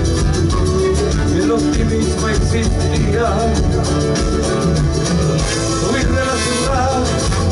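Live Latin American folk-rock band playing an instrumental passage: strummed guitars and drum kit with trombone and trumpet, heard loudly through the stage sound system.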